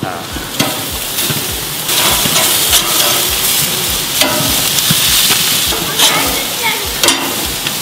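Meat sizzling on a hot barbecue grill: a steady hiss with scattered crackles and pops, which grows louder about two seconds in.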